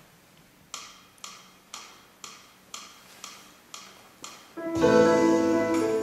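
Eight sharp ticks, evenly spaced at two a second like a count-in, then a Steinway grand piano comes in loudly with full, sustained chords and a melody about three-quarters of the way in.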